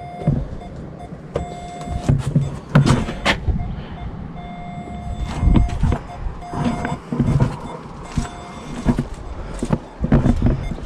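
Volvo XC90 rear parking sensor warning tone beeping in short dashes with gaps between them, the car being in reverse. Scattered knocks and clatter sound between the beeps.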